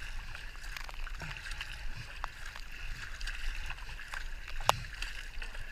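Paddle blades of a two-person K-2 kayak dipping and pulling through calm water, with small splashes and drips between strokes. A single sharp knock about four and a half seconds in is the loudest sound.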